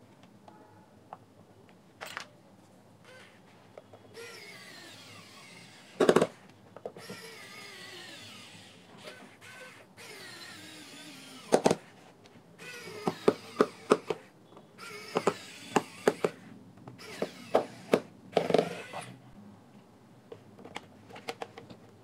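Small electric precision screwdriver driving screws into a plastic speaker housing in several short runs, its whirr falling in pitch as each screw tightens. Sharp clicks and knocks of the tool and parts being handled come between the runs, the loudest about six seconds in and near the middle.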